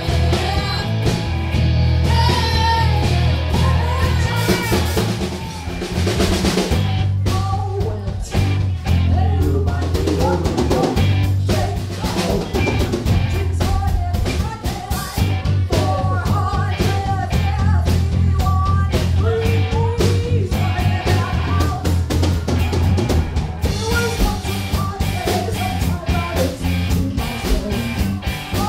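Live rock band playing: drum kit, electric guitar and bass under sung vocals, heard through a crowded bar. The music shifts about six seconds in, then carries on with a steady beat and singing.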